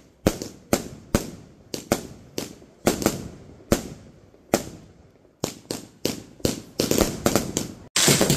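A consumer firework cake firing shot after shot, sharp bangs about two a second, each with a short fading tail. After about five seconds the shots come quicker, and near the end they run together into a louder, continuous crackle.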